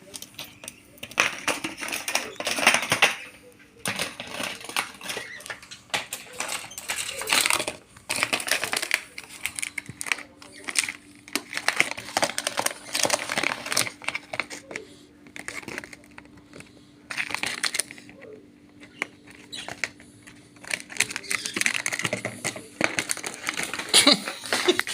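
Rainbow lorikeet chattering harshly in irregular scratchy bursts, mixed with clicking and rattling.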